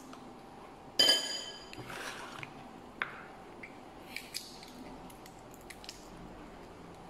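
A sharp, ringing clink of tableware about a second in, followed by scattered soft clicks and wet squishing as fingers pick apart steamed shellfish on a plate.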